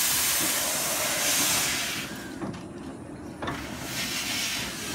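Steam hissing loudly from the 15-inch-gauge locomotive Northern Rock. It cuts off about two seconds in and comes back fainter a second and a half later, with two short clicks in the gap.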